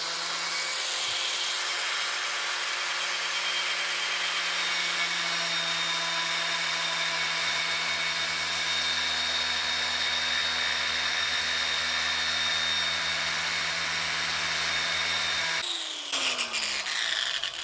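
Angle grinder with a cutting disc coming up to full speed and running with a steady high whine, then cutting a slit into a metal bar held in a vice. About fifteen seconds in it is switched off and its pitch falls as the disc spins down.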